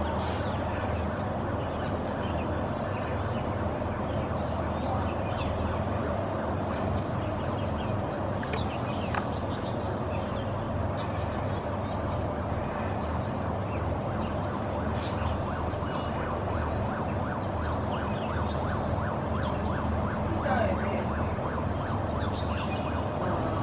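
Steady distant city noise of traffic and fire appliances, with an emergency-vehicle siren sounding through it.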